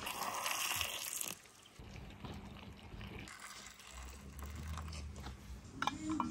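Pickling brine poured from a steel saucepan in a thin stream into a glass jar of tomatoes, a splashing trickle loudest in the first second. A few sharp clicks near the end as a metal lid is set on a jar.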